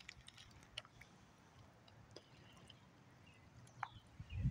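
Quiet waterside ambience: faint scattered ticks and drips from small ripples on open river water, with a few faint bird chirps near the end. A brief low thump closes it.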